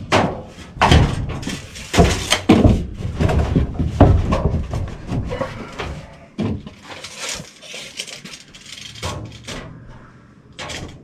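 Thin sheet-metal ductwork being handled and fitted by hand: a run of metallic knocks, bangs and scrapes, busiest in the first five seconds, then sparser.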